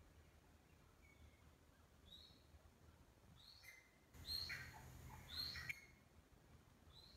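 Caged grey francolin calling: short high notes, each falling quickly in pitch, spaced every second or so, with a louder, busier run of calls about four seconds in that lasts a second and a half.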